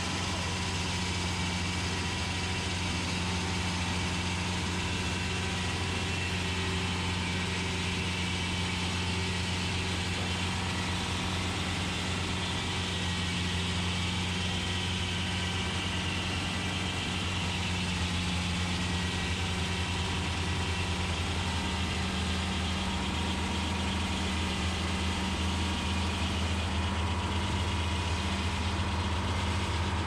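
A GM Detroit Diesel 4-71, a supercharged four-cylinder two-stroke diesel, running at a steady speed while it drives a Frick sawmill's circular saw, a constant low drone with no break.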